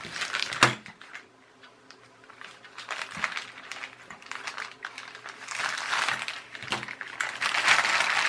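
Plastic packaging crinkling and rustling as a small parcel of lamp socket adapters is unwrapped and handled. A few sharp clicks come through, one near the start, one about three seconds in and one near seven seconds. The rustling is loudest near the end.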